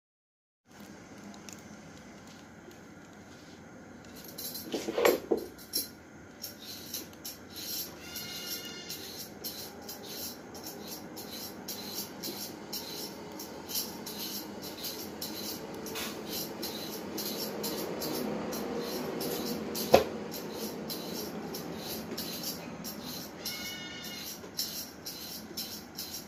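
Kitchen handling sounds at a sink as a carrot is handled: scattered clicks and knocks, a cluster of loud knocks about five seconds in and one sharp knock near the end. A steady low hiss runs underneath, with two brief high squeaks.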